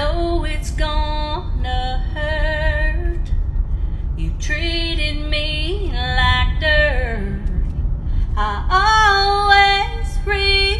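A woman singing a slow country song, long held notes with vibrato in phrases broken by two short pauses, over a steady low rumble.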